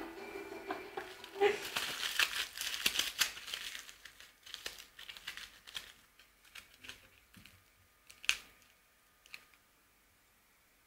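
Crinkling and rustling as a cat plays with a red object on the floor, densest in the first few seconds, then fading into scattered light clicks and taps, with one sharper click near the end.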